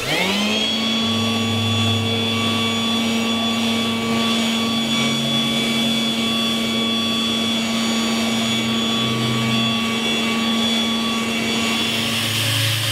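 Corded electric leaf blower spinning up fast at the start, then running at a steady whine with rushing air as it blows dust off pieces of wood. Near the end it gives way to an angle grinder with a sanding disc working the wood.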